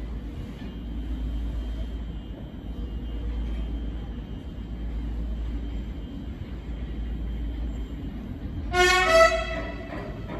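Train rumbling steadily through a station, with a short, loud horn blast about nine seconds in.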